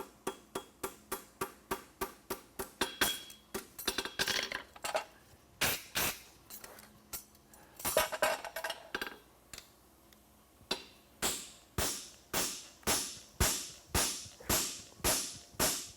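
Farrier's hammer striking a steel horseshoe on an anvil while shaping it: runs of quick blows, a pause of about a second past the middle, then steady blows about two a second.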